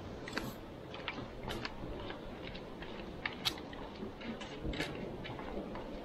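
Footsteps on a concrete path: light, irregular clicks and scuffs of shoes, a few a second, over a low steady background noise.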